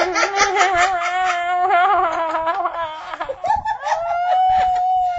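A person wailing on a long, high note that wavers up and down, then after a short break holding a higher, steadier note.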